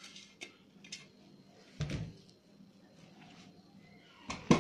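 Kitchen handling noise as chopped spinach is tipped from a plastic container into a steel mixing bowl of flour and mixed in by hand: a few light clicks, a dull thud about two seconds in, and a louder knock near the end.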